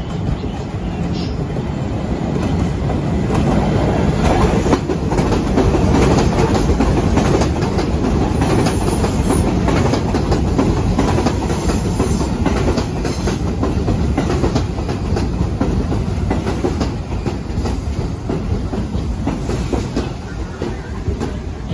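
R62A New York City subway train pulling into a station on elevated track, its wheels clattering over rail joints in a loud, rapid clickety-clack. The sound builds as the cars come alongside and eases near the end as the train slows.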